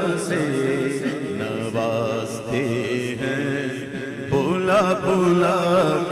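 Male voice singing a naat in a wavering, ornamented melody over a steady low drone. The melody thins out about four seconds in, then comes back louder.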